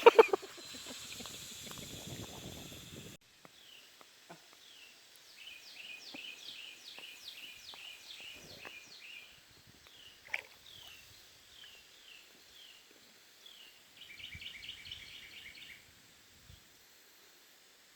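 A songbird singing: runs of quick down-slurred whistled notes, then about fourteen seconds in a fast, even trill. A steady hiss stops abruptly about three seconds in, and there is a single click near ten seconds.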